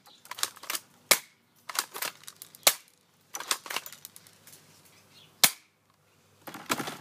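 Airsoft gun firing BBs at a laptop: three sharp cracks, the last the loudest, with bursts of lighter clicking and rattling between them.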